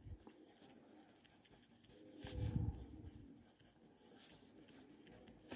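Ballpoint pen writing on a paper textbook page, a faint scratching of pen strokes, with a brief low sound about two seconds in.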